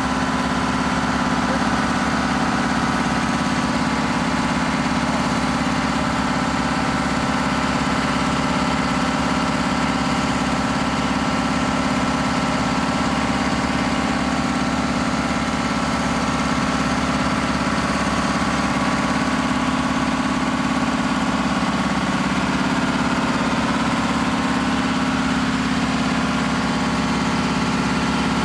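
Antique fire truck's engine running steadily at pumping speed, driving its fire pump to draft water from a pond and feed a monitor nozzle; the engine note shifts slightly about three-quarters of the way through.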